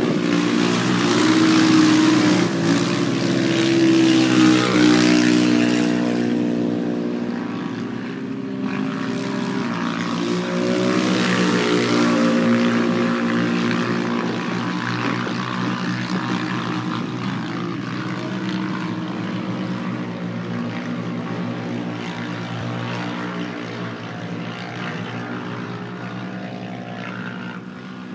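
Quadcopter drone's propellers buzzing in a steady multi-tone hum that shifts up and down in pitch as it manoeuvres, with a louder rushing hiss over it for the first dozen seconds.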